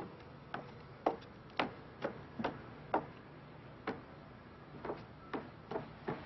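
Footsteps on a hard floor: a run of sharp heel strikes, about two a second at uneven spacing.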